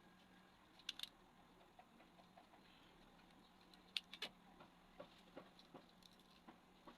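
Faint scattered clicks and light taps, with two sharper clicks about a second in and two more about four seconds in, over a faint steady low hum.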